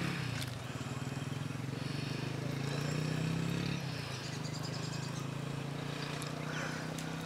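A steady low engine-like hum with a fast even pulse, easing slightly about four seconds in, with a few faint bird chirps above it.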